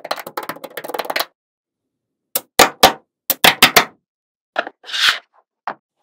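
Small magnetic balls rattling for about a second as a sheet of them is bent and folded, then, after a pause, a quick run of sharp clicks as the balls snap together into place, with a few more clicks and a brief scrape near the end.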